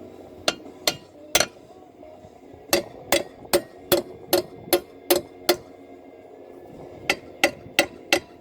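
Hammer blows on the case cover of a 12 hp flathead Briggs & Stratton engine, knocking the cover loose from its studs. There are about fifteen sharp metallic strikes: three single blows, then a quick run of about eight, and then four more near the end.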